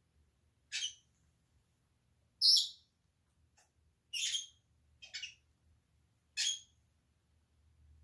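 Senegal parrots giving short, shrill squawks: five separate calls about one to two seconds apart, the loudest about two and a half seconds in.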